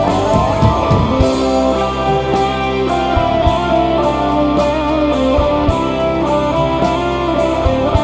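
Live band music led by an electric guitar, with a drum kit keeping time underneath.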